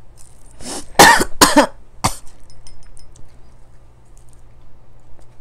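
A person coughing in a quick run of about four rough coughs, starting about a second in and over within about a second and a half.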